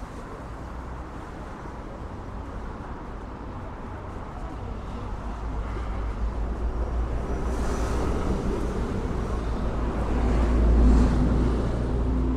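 A motor vehicle passing close by on the street: a low engine and road rumble that builds over several seconds, is loudest near the end, then begins to fade.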